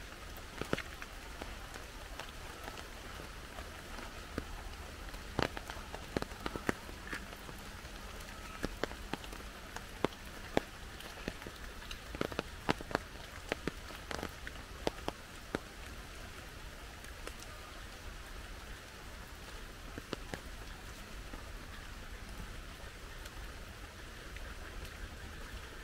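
Heavy rain falling steadily, with frequent sharp drops striking close by, thickest in the first half.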